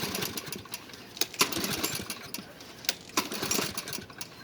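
Troy-Bilt push mower's Briggs & Stratton 6.75 gross-torque engine being pull-started: the recoil starter rope is yanked a few times in quick succession and the engine turns over in short rough bursts without catching.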